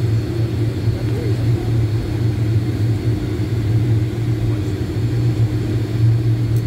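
Cabin noise of a Boeing 757-300 taxiing: a steady low rumble and hum from its Rolls-Royce engines at low thrust, heard from inside the passenger cabin.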